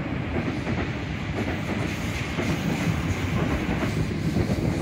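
Sydney Trains Waratah electric multiple unit running along the track below, a steady rumble of wheels on the rails and running gear.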